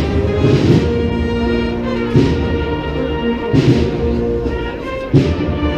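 Spanish Holy Week processional band (agrupación musical of cornets, trumpets and drums) playing a march with sustained brass notes and repeated cymbal crashes and drum hits.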